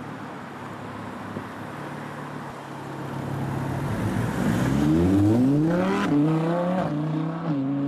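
2015 Audi R8 V10 Plus's naturally aspirated 5.2-litre V10 driving past: a low steady engine note at first, then the pitch climbs steeply from about four seconds in as the car accelerates by, loudest as it passes, settling into a higher steady note near the end.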